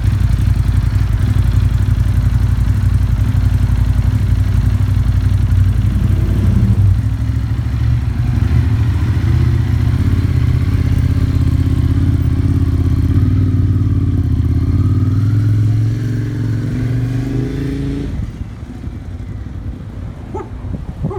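Ducati 821 motorcycle's L-twin engine running, its note climbing in pitch in the second half, then growing fainter after about sixteen seconds.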